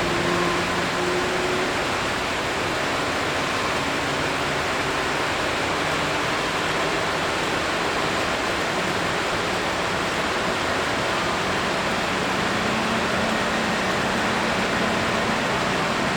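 Jet airliner engines: a steady, even rushing roar, with a faint low hum that drifts in pitch.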